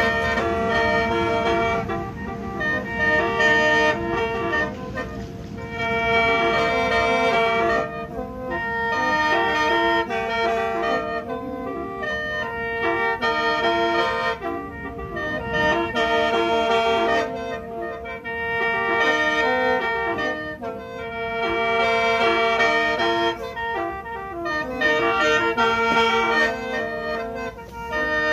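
Lao khaen, a bamboo free-reed mouth organ, played solo: a running melody over a steady drone note, in phrases that swell and ease about every two seconds.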